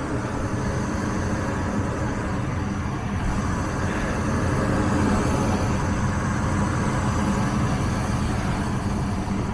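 Furnace running in heating mode: the blower moves air through the ductwork with a steady rushing sound and a low hum.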